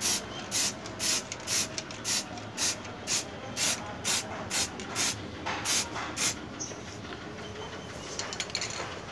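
Aerosol spray-paint can hissing in short, evenly spaced bursts, about two a second, as paint is puffed onto a metal part. The bursts stop about six and a half seconds in and start again at the end.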